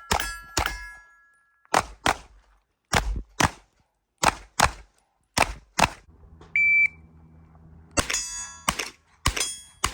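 Rapid gunfire at steel targets, the shots mostly in quick pairs, some followed by the bright ringing of struck steel plates. Shortly after the midpoint the shooting pauses for a short electronic beep, like a shot timer's start signal, and then rapid shots and steel rings start again.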